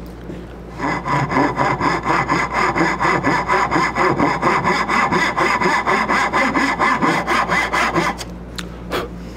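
Fine-tooth Japanese pull saw cutting dovetail pins in a walnut board, in quick, even strokes of about four a second. The sawing starts about a second in and stops about eight seconds in.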